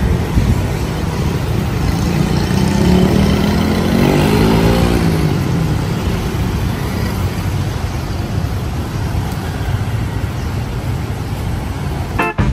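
City street traffic noise, a steady rumble of passing vehicles, with one engine rising in pitch as it speeds up about two to five seconds in.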